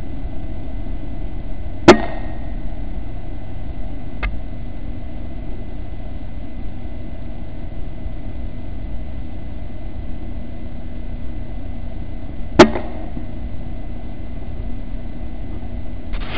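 Two shots from an Air Arms S510 pre-charged pneumatic air rifle, sharp cracks about ten seconds apart, the second the louder, with a faint click between them. A steady hiss runs underneath.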